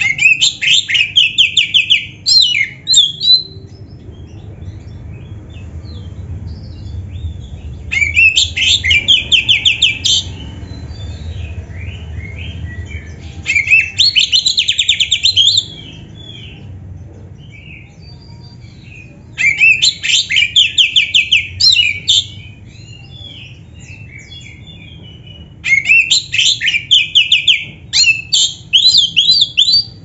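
Oriental magpie-robin (black-breasted kacer) singing: five loud bursts of rapid, repeated high notes, each two to four seconds long, with quieter chirps and calls in the gaps between them.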